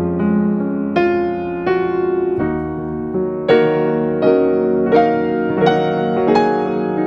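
Background piano music, notes struck at an even, unhurried pace and left to ring.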